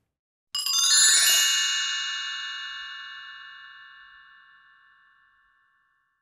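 Short outro music sting: about half a second in, a quick run of bright ringing tones enters together and then rings out, fading away over about four seconds.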